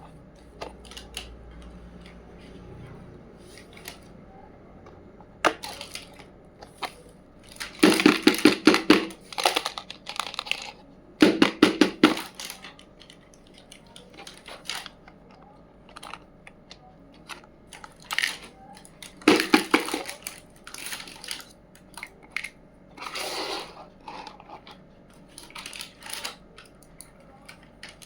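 Small miniature toy kitchen pieces being handled and unpacked: scattered clicks and taps, with louder bursts of quick rattling clicks about eight, eleven and nineteen seconds in.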